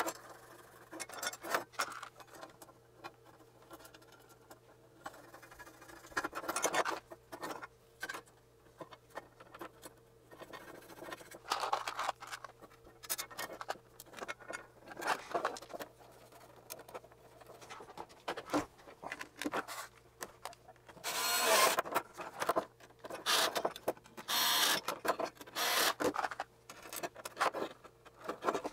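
Hands assembling a soldering station's stand and metal base plate: scattered clicks, rubs and scrapes of metal and plastic parts, with a few longer scraping stretches about two-thirds of the way in, over a faint steady hum.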